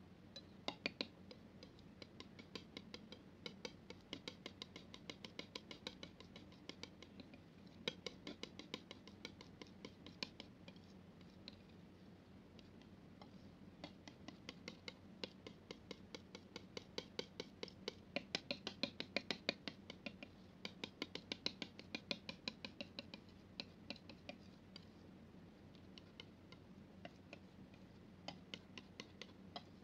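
Palette knife mixing thick paint on a flat surface: a faint, irregular run of small clicks as the blade presses into and lifts from the paint, thickest in the middle.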